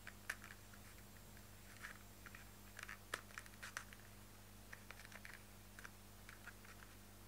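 Plastic cards being slid in and out of a stitched leather card case: scattered faint clicks and scrapes of card edges against leather, in small clusters, over a steady low hum.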